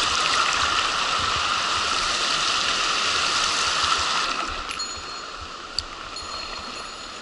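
Mountain stream rushing over rocks, loud at first, then fading to a quieter wash about four seconds in. A single sharp click comes near the end.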